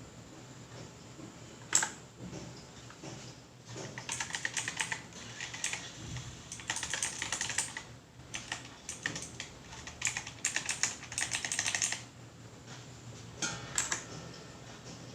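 Typing on a Quantum QHM9800 mechanical keyboard with clicky blue switches. A single sharp keystroke comes about two seconds in, then several runs of rapid key clicks through the middle, and a short burst near the end.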